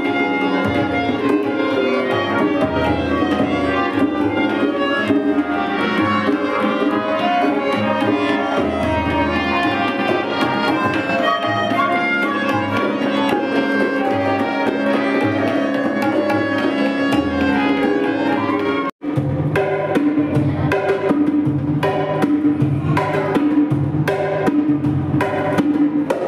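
Indian light-classical music: a harmonium melody over a steady drone with tabla accompaniment. About 19 s in it cuts off for an instant and gives way to a set of three congas played in a quick, even rhythm.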